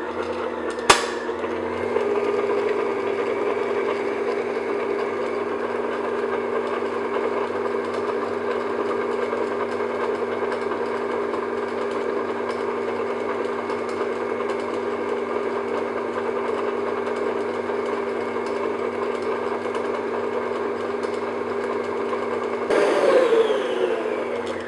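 Electric stand mixer running steadily as its flat beater creams almond paste, sugar and soft butter into cake batter, with a single sharp click about a second in. Near the end the motor's pitch slides as the speed knob is turned, and it winds down and stops.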